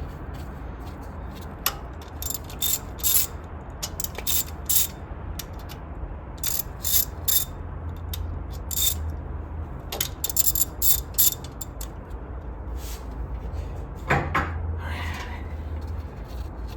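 Hand ratchet wrench clicking in short bursts while bolts are turned on an engine.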